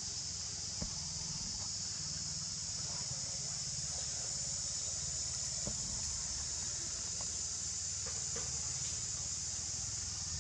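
Steady high-pitched drone of a chorus of insects, unbroken throughout, over a low rumble.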